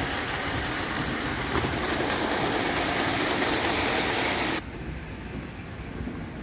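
Bing 0 gauge live steam train running past on model railway track, a steady running noise that grows a little louder, then cuts off sharply about four and a half seconds in to a quieter background.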